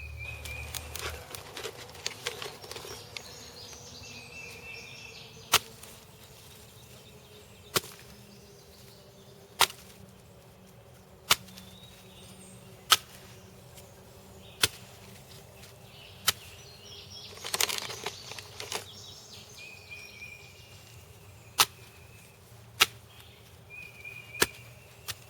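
A series of sharp clicks, roughly one every one and a half to two seconds, with a short rustling burst about two-thirds of the way through, over faint insects trilling.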